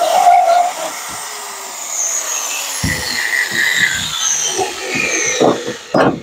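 Electric drill cutting metal at a truck bed's mounting nut, then released and spinning down with a falling whine. Several metal clanks and knocks follow as the tool and a bolt are handled, the loudest near the end.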